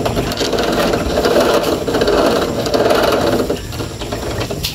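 A machine running with a fast, even rattle for about three and a half seconds, then dropping away.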